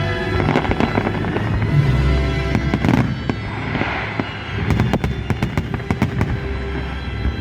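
Fireworks salute going off: a dense run of sharp bangs and crackling with deep booms, over loud music playing.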